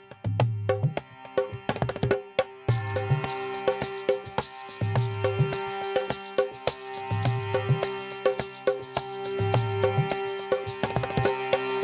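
Background music with a steady percussive beat and a repeating bass figure, with fuller instrumentation and a high shimmer coming in under three seconds in.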